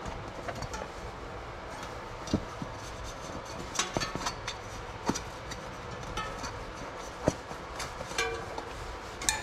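Mountain bike tire bead being pushed onto a DT Swiss rim by hand, rubber rubbing along the rim with a handful of sharp clicks and knocks as the bead slips over the rim edge.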